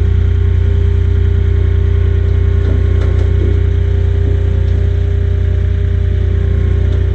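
Diesel engine of a JCB 150T compact track loader running steadily.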